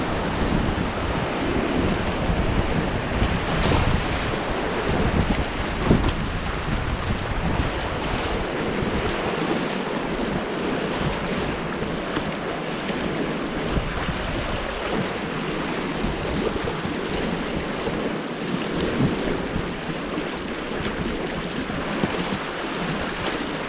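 Rushing river water with wind buffeting the microphone; the low rumble of the wind eases after about nine seconds.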